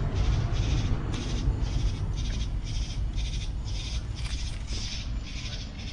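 Insects calling in a steady rhythmic pulse, about two to three pulses a second, over a low steady rumble.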